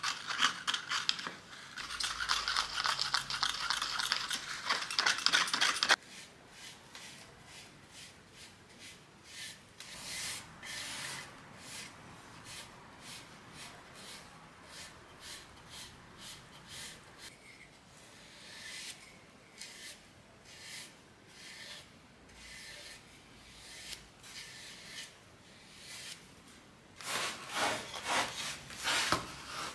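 For the first few seconds, a spatula scraping and stirring paint in a small plastic cup; this stops suddenly. Then a wide bristle paintbrush makes soft, repeated swishing strokes as it spreads paint along bare wood, with a louder run of quick strokes near the end.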